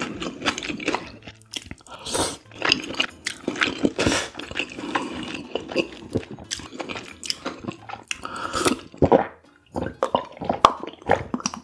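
Close-up mouth eating sounds: noodles and soup slurped and chewed wetly, with many small clicks and smacks. Near the end, broth drunk from a bowl with slurps and swallows.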